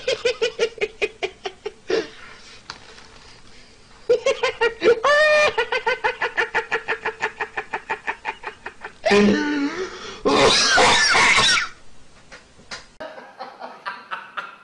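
Laughter in long runs of quick "ha-ha" pulses, several a second, stopping and starting again, with a short, louder, harsher burst of laughter about two-thirds of the way through.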